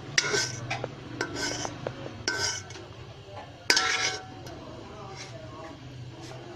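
Metal spoon clinking and scraping against a metal cooking pot while stirring, a handful of sharp ringing clinks with the loudest about two-thirds of the way in, over a low steady hum.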